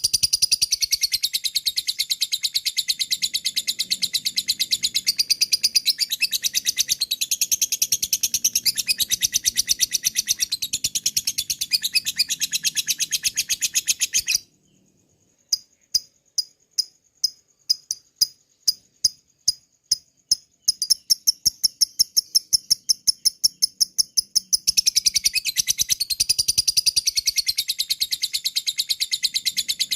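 A lovebird's long 'ngekek' chatter: a fast, unbroken run of sharp, high chirps. About halfway it breaks off for a second, comes back as separate sharp ticks that speed up into a rapid train, and then runs on into the long chatter again.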